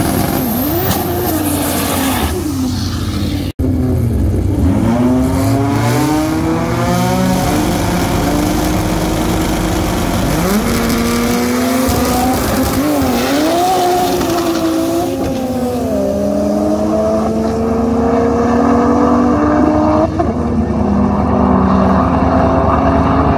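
Race car engine accelerating hard, its pitch climbing and dropping back at each gear change. The sound breaks off for an instant about three and a half seconds in.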